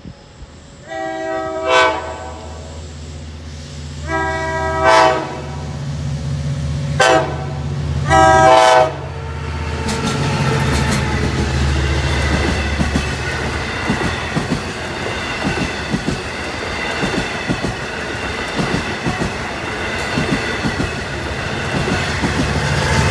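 Nathan K5LLA five-chime horn on a Long Island Rail Road DM30AC locomotive sounding the grade-crossing signal: long, long, short, long. Then the locomotive and its bilevel coaches pass the crossing, with a steady engine rumble and the wheels clattering.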